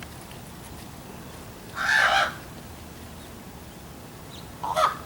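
Common ravens calling: a harsh, drawn-out call about two seconds in and a shorter, rising one near the end.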